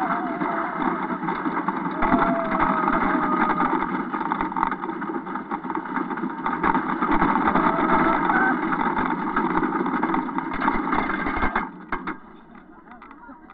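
Stampida, a rickety wooden roller coaster, its train running at speed over the track with a loud steady rumble and rattle. The noise drops away sharply about twelve seconds in.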